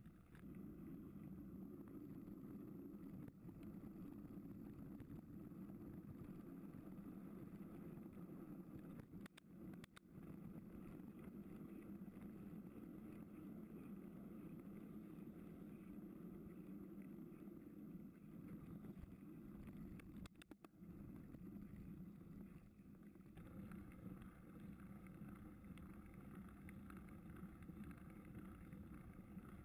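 Low, steady rumble of a mountain bike being ridden, picked up by a camera mounted on the bike: tyres rolling over tarmac, dirt and gravel with wind on the microphone, broken by a couple of short dropouts.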